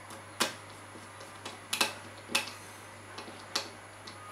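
A small screwdriver clicking and tapping against the screw terminals of a TPA3116D2 amplifier board: about eight sharp, irregular clicks, the loudest near the middle, over a steady low hum.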